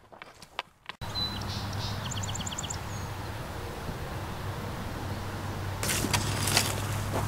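Light clicks and scrapes of a hand hoe in dry soil, then, over a steady low hum with a brief run of high chirps, several sharp strikes of a Ho-Mi digger hoe chopping into dry soil near the end.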